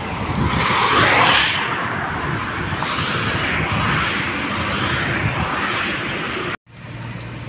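Highway traffic noise as cars and a truck pass at speed, swelling as one goes by about a second in. It cuts off abruptly near the end, giving way to a quieter, steady low hum.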